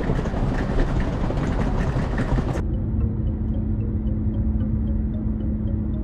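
Outdoor road traffic noise beside a taxi stand. About two and a half seconds in it cuts to the muffled, steady rumble of a car driving, heard from inside the cabin, with a low steady hum.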